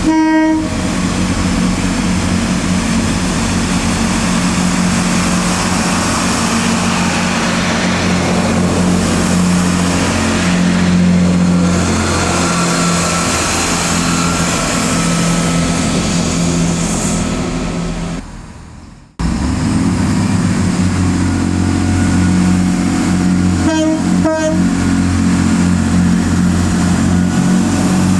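A train running past with a steady low engine note. There is a short horn note at the very start and two brief horn toots about three-quarters of the way through. Partway through the sound fades and cuts out for a moment, then comes back abruptly.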